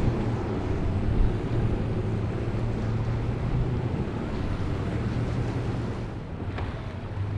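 Twin Yamaha outboard motors on a center-console boat running at speed, a steady drone under the rush of water and surf, with wind buffeting the microphone.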